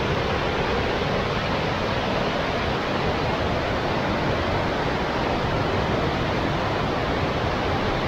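Fast-flowing river rushing over rocky cascades and small waterfalls, a steady, even sound of white water going at a fair old pace.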